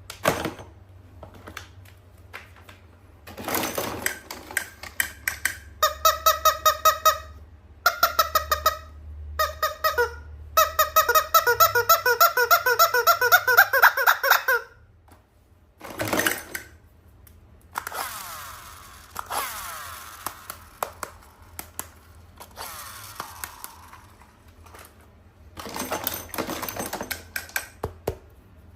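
Toy and packaging being handled: crinkling, rustling and clicks. In the middle stretch a pitched sound pulses rapidly, several times a second, and rises in pitch near its end before stopping.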